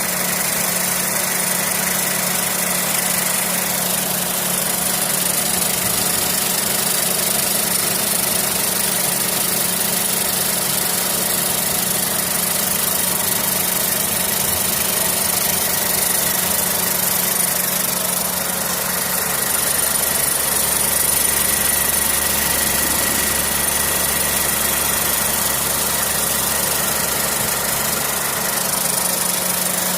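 Car engine idling steadily with the air-conditioning compressor running; the compressor is suspected of an abnormal noise. A deeper hum comes in about nineteen seconds in.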